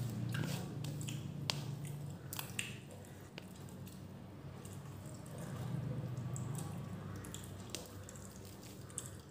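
Fingers squishing and mixing rice and beef gravy on a stainless-steel plate: wet squishes and sharp little clicks, scattered irregularly.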